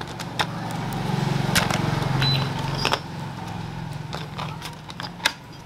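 Clear plastic blister packaging crackling and clicking as it is handled and pried open, with a low rumble that swells for the first three seconds or so and then eases.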